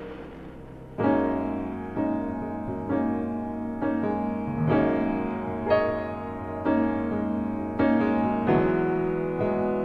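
Background music of slow piano-like keyboard chords, struck about once a second, starting about a second in.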